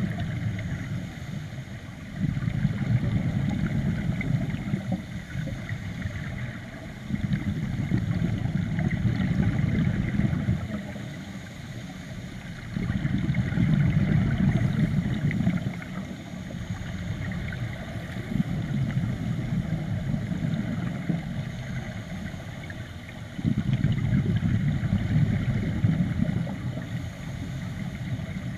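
Scuba regulator breathing heard underwater: the rumble of exhaled bubbles comes in stretches of three to five seconds, about five times, with quieter inhales between.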